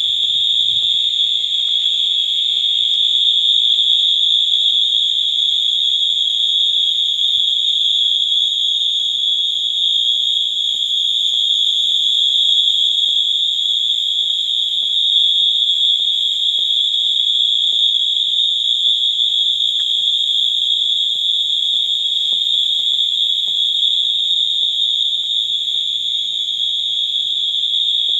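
Wheelock AS and MT fire alarm horns sounding together in one loud, steady, high-pitched tone. The horns are set to continuous output, not synchronized, as in a fire alarm system test.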